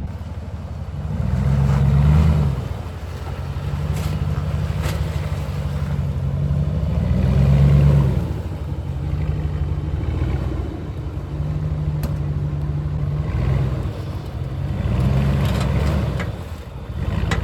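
A 4x4 pickup truck's engine running at low revs and revving up in three bursts while crawling an off-road obstacle.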